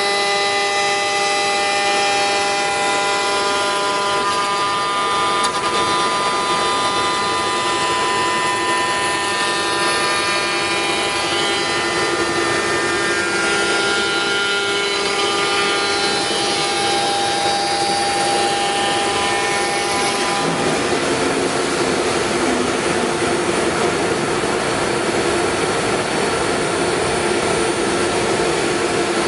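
5-axis CNC wood router running, its spindle giving a steady whine of several tones while machining. About two-thirds of the way through the whine drops away into a rougher, noisier running sound with a lower hum.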